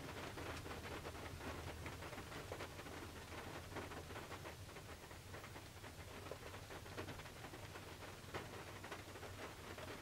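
Rain falling on the roof and windows of a Toyota 4Runner, heard from inside the back of the vehicle: many separate drops ticking over a soft hiss, with a steady low rumble underneath.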